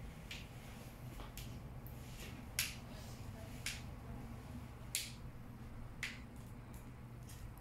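Short, sharp clicks and ticks, about one a second, from fingers handling a phone while a protective screen film is peeled and pressed on; the loudest comes about two and a half seconds in. A low steady hum runs underneath.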